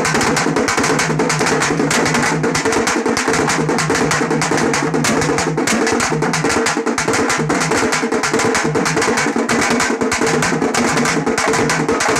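Teenmaar street drumming: large stick-beaten drums and a dholak played together in a fast, dense, continuous beat.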